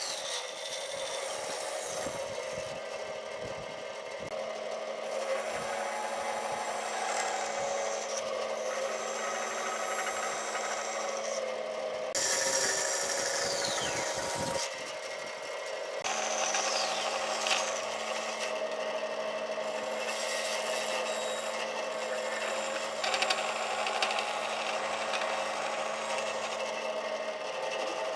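Band saw running and cutting through a round solid-wood log in several passes, the blade's cutting noise swelling and easing as the wood is fed. A couple of brief falling whistles come midway.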